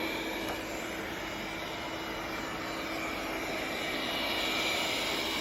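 Cecotec Conga robot vacuum running as it cleans: a steady whir from its suction fan and brushes, with a low hum under a hiss.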